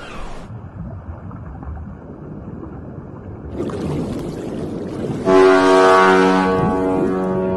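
Rushing sea-and-wind noise, then about five seconds in a cruise ship's horn sounds one long, steady blast.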